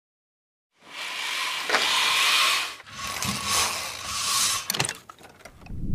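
Venetian blind being raised by its cord: the slats rattle and clatter in two long pulls, each about two seconds, then a few sharp clicks near the end as it locks.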